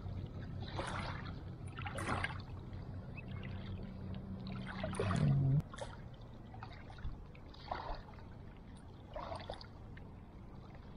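Water splashing softly a handful of times, short splashes a second or more apart, over a faint low hum.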